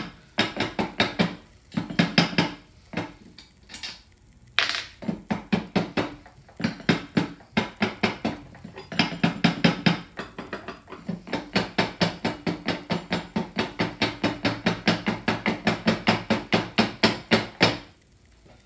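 Rapid, even metallic tapping, about five strikes a second, each with a short ringing tone, coming in several runs with brief pauses between them.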